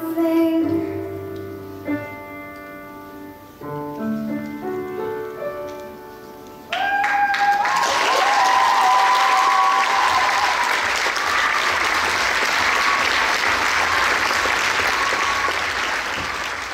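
A Steinway grand piano plays the closing notes of a ballad, single notes and chords ringing out. About seven seconds in, the audience breaks into loud applause with a few held high cheers over it, the clapping continuing steadily.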